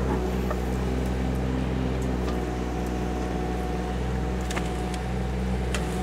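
KYMRON ZX22D mini excavator's diesel engine running steadily under working load, with a few short sharp clicks over it.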